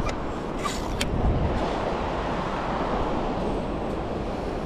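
Steady wind rumble on the microphone over surf washing on wet sand, with a short wet hiss ending in a click about a second in as a lugworm bait pump is worked into the sand.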